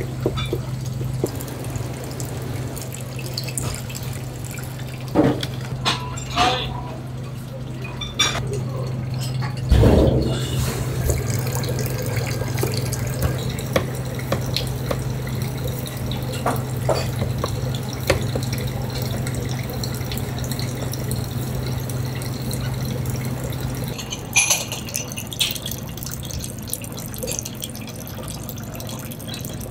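Kitchen prep sounds: a water tap running steadily, with scattered sharp taps of a knife on a plastic cutting board and one heavier thump about ten seconds in. A steady low hum runs underneath and stops about 24 seconds in.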